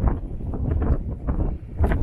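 Wind buffeting the microphone: a low, uneven rumble with irregular rustles and knocks.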